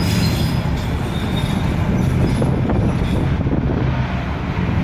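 Demolition excavator running and moving on its steel tracks as it backs up to reposition: a steady heavy rumble with metallic rattling and clanking.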